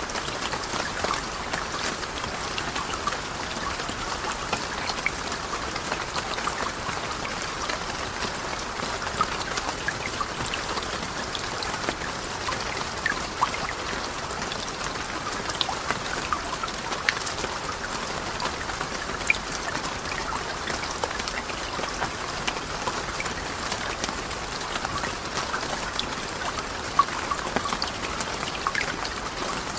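Rain falling steadily: an even hiss with many small, sharp drop ticks scattered through it.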